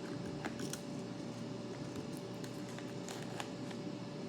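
Air fryer running with a steady hum, with a few light clicks and rustles of a snack bag being handled over it.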